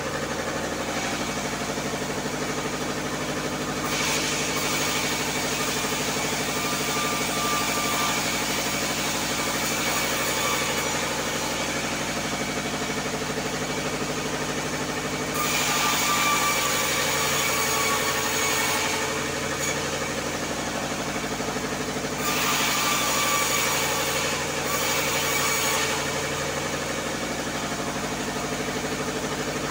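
An engine-driven band sawmill runs steadily while its blade cuts through timber in several stretches. Each cut adds a rasping hiss, and the engine's pitch sags under the load and then recovers.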